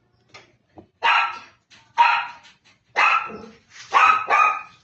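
A dog barking: five loud barks about a second apart, the last two close together.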